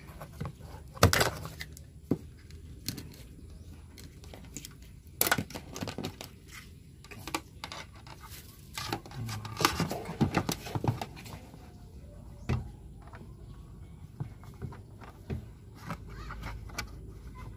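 Handling noise of a power adapter cable taken out of a cardboard box and plugged into a satellite TV receiver: scattered rustles, clicks and knocks, the loudest about a second in and again around the middle.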